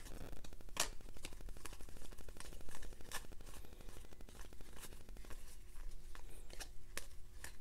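2017 Donruss Optic football trading cards being flipped through by hand: a quick run of small clicks and slides of card against card, thinning out over the last couple of seconds.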